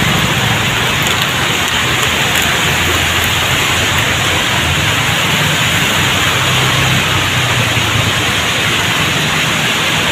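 Heavy tropical rain pouring steadily onto a flooded road, an even, unbroken hiss, with a low hum of motorbike engines underneath.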